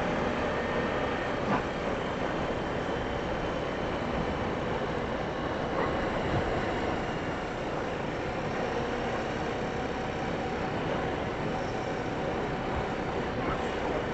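Four-wheeler (ATV) engine running steadily while riding along a trail, with a couple of small knocks.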